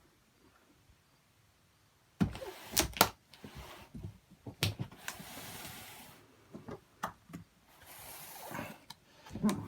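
A large cardboard toy box being handled and turned over: a series of sharp knocks and taps, with stretches of cardboard rubbing and sliding in between.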